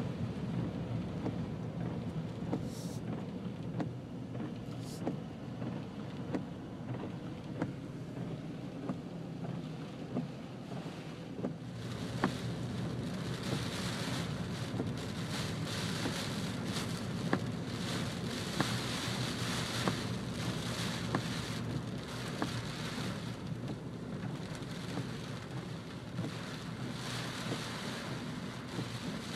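Heavy rain pelting a moving car's windshield and roof, heard from inside the cabin over the steady low hum of the engine and tyres on a wet road, with scattered sharp ticks of drops striking. The rain grows heavier about twelve seconds in.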